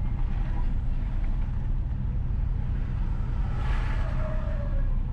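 Steady low rumble of a car driving slowly on a town street: engine and road noise heard from inside the vehicle. About four seconds in a brief, higher sound from the street rises over it, with a short tone that dips slightly.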